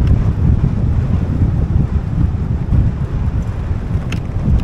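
Wind buffeting the microphone of a camera on a moving vehicle's bonnet: a loud, uneven low rumble. A brief click comes near the end.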